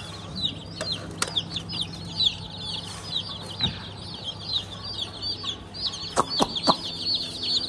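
A brood of wet, chilled baby chicks peeping nonstop, many rapid high chirps overlapping, with a few sharp clicks about a second in and again around six seconds in.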